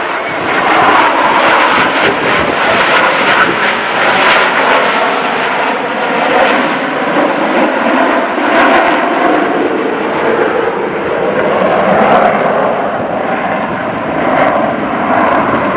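Four Blue Angels F/A-18 Super Hornet jets flying in diamond formation: steady, loud jet engine noise that drifts slowly in pitch.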